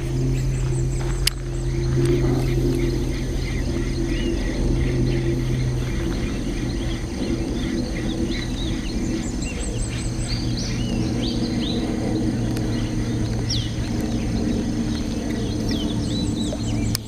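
Many short bird chirps and calls over a steady low hum, with a single sharp click about a second in.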